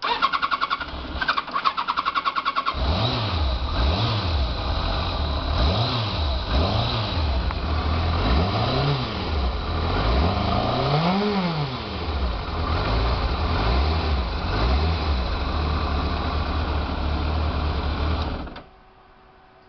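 Motorcycle engine started on the electric starter: the starter cranks rapidly for nearly three seconds before the engine catches. It is then blipped up and down several times, settles to a steady idle, and is switched off near the end, stopping abruptly.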